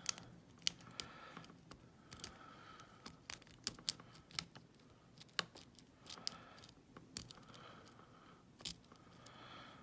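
A Sparrows worm rake raking inside the keyway of a large ISEO padlock under tension: irregular light metallic clicks and faint scraping.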